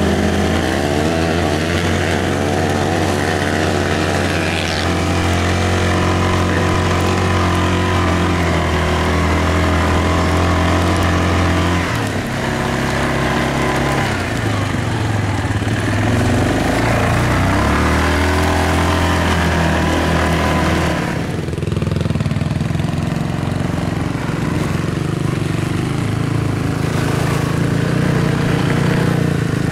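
Quad ATV engine running under load, heard from on board, its engine note shifting several times as the rider changes speed and gears climbing a rough dirt trail.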